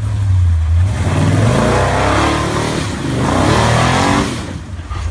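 Big-block Chevy V8 in a rock buggy revving hard at full throttle, in two surges that rise in pitch, easing off about four and a half seconds in.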